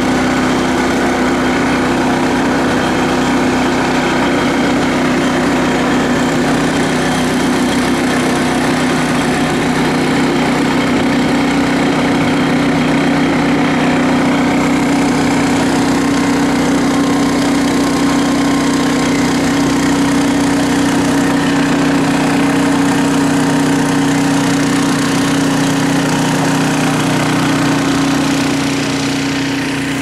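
Small engine of a forest monorail carriage running steadily as it travels along its rack rail, with a constant low hum; it eases off slightly near the end.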